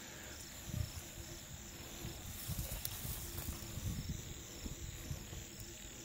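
Night field ambience: insects chirping in a faint, evenly repeating pattern, over low bumps and rustles.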